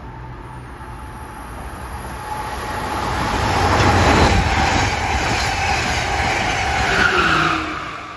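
Amtrak Keystone train led by an ex-Metroliner cab car passing at speed: a rushing rumble of wheels and air that builds to its loudest about four seconds in, holds, then falls off sharply near the end as the train clears.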